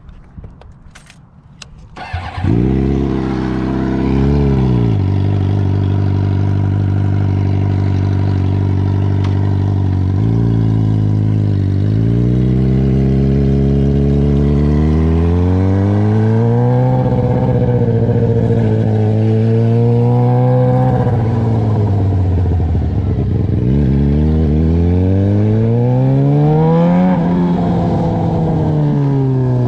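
Suzuki GSX-R 600 inline-four engine starting about two seconds in, after a couple of clicks, then running with its engine speed rising and falling slowly several times.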